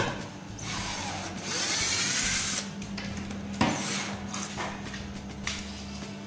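Electric circular saw mounted under a plywood table, its motor running with a steady hum. There is a louder stretch of noise from about one and a half to two and a half seconds in.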